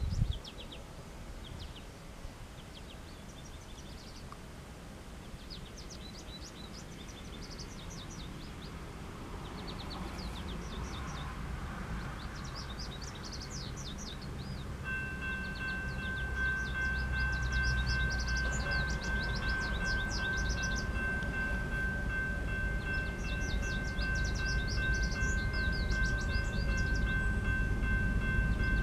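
Approaching freight train led by GE diesel locomotives (a Dash 9-44CW and an ES44DC), a low rumble growing steadily louder, with birds chirping. About halfway through a steady high ringing tone starts and holds: the grade-crossing warning bell as the signals activate.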